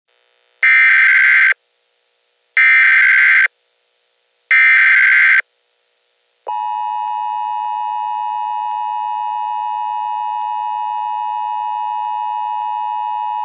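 Emergency Alert System alert opening: three short bursts of screeching digital header data about a second apart, then a steady, loud attention-signal tone that starts about six and a half seconds in and holds.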